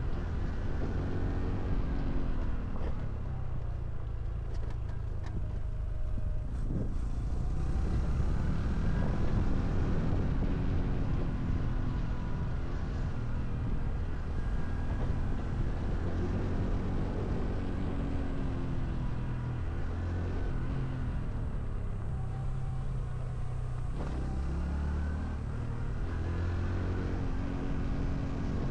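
Honda CT125 Hunter Cub's air-cooled single-cylinder four-stroke engine running on the move, its pitch rising and falling several times as the bike speeds up and slows, over a steady rush of wind and road noise.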